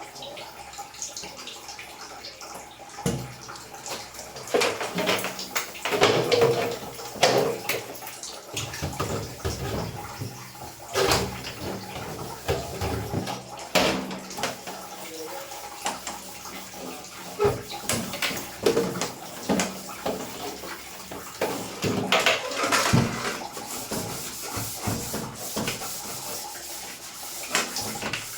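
Running water splashing, broken by irregular knocks and clatter, as air-conditioner parts are washed by hand.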